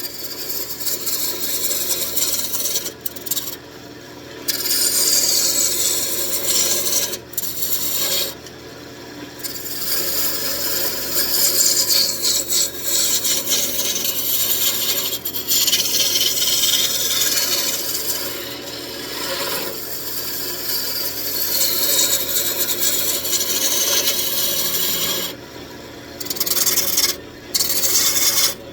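Roughing gouge cutting into a spinning old table leg on a wood lathe, roughing it down to one diameter. It makes a steady rasping scrape that stops briefly several times as the tool is lifted off.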